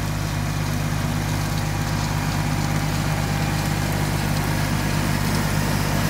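John Deere 5205 tractor's three-cylinder diesel engine running steadily, powering a rotary cutter (brush hog) that is mowing dry grass.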